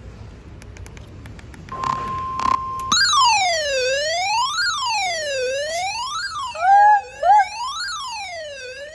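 Weather radio set off by the National Weather Service's weekly warning alarm test. About two seconds in, the warning alarm tone sounds as one steady high beep for about a second. The radio's alarm then wails, sweeping up and down about every second and a half, and two short, loud sliding sounds cut across it near seven seconds.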